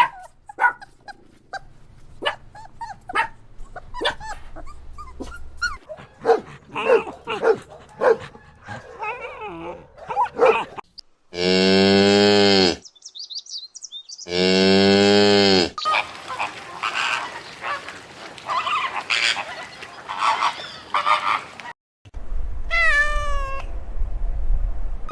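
Cattle mooing: two long, low calls of about a second and a half each, a couple of seconds apart, among many shorter animal calls and a higher call near the end.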